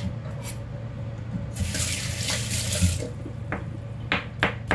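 Kitchen sink tap runs for about a second and a half, then shuts off. A few seconds in, a knife starts chopping garlic on a plastic cutting board in several short, sharp knocks.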